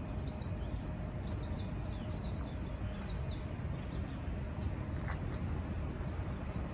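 Outdoor street ambience: a steady low rumble, with small birds chirping in short, scattered calls.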